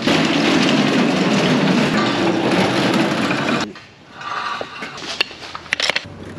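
A loud, steady mechanical noise that cuts off suddenly a little under four seconds in, followed by scattered clinks and knocks of metal tools being handled in a pickup's toolbox.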